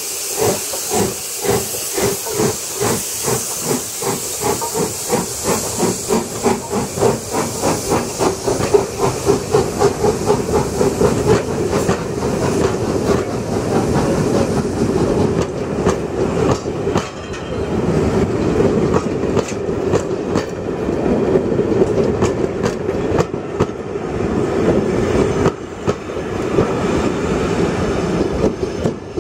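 LMS Royal Scot class three-cylinder 4-6-0 steam locomotive pulling away with its train: regular exhaust beats quickening over a steady hiss of steam. Then the coaches roll past with a clickety-clack of wheels over the rail joints.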